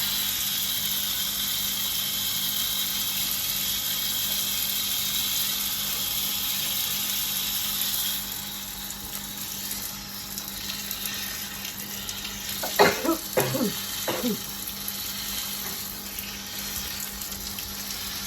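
Running water from a tap, pouring steadily as a large tortoise is washed; the flow gets quieter about eight seconds in. A few short voice-like sounds come about thirteen seconds in.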